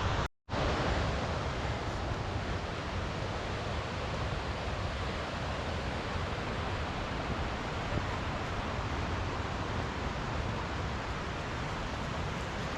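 Steady outdoor rushing noise, strongest in the low range, with a brief complete dropout about a third of a second in.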